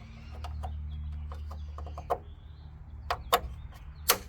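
Caps being pushed back on and snapping into place: a run of sharp clicks and handling knocks, the loudest two near the end, over a steady low hum.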